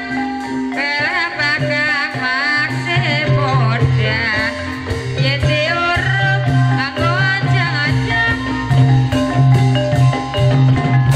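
Live Javanese gamelan music for an ebeg dance: metal mallet instruments and gongs playing a steady melody, with a high wavering melody line over them.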